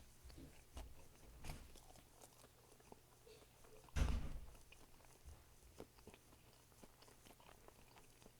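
A person chewing and biting food close to the microphone: soft, scattered crunches and mouth clicks, with one louder bite or knock about four seconds in.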